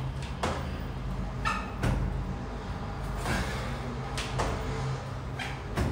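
Dull thuds of sneakered feet and hands landing on a tiled floor during burpees, about once a second, over a steady low hum.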